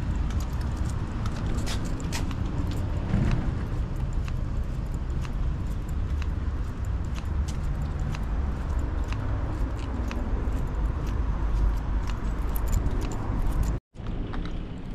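Wind rumble on the camera microphone and road noise while riding, with scattered small clicks and rattles. The sound cuts out for a moment near the end.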